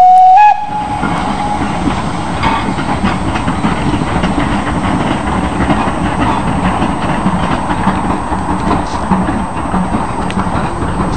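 Steam locomotive whistle gives one short, very loud blast on a single note that steps up slightly. Then a small steam tank engine and its passenger carriages run past with a steady train noise along the track.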